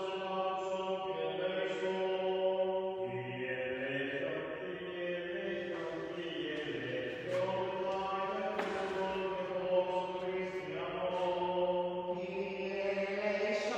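Greek Orthodox Byzantine chant: a slow, drawn-out sung melody over a steady low held note.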